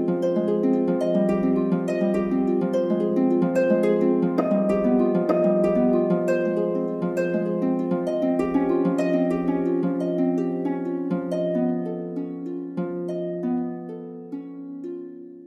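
Relaxing instrumental music: a steady run of plucked string notes over a held low tone, thinning out and growing quieter near the end.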